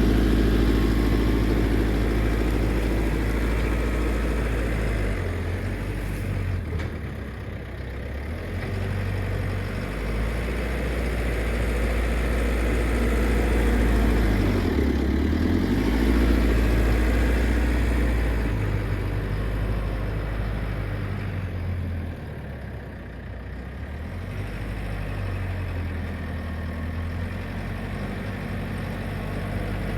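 JCB 4CX backhoe loader's diesel engine working, its speed rising and falling several times as the loader moves and levels stone with the front bucket.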